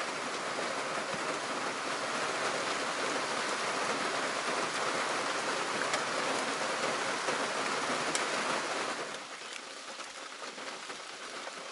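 Heavy rain falling on shallow open water, a steady even hiss of drops hitting the surface; the rain sound becomes quieter about nine seconds in.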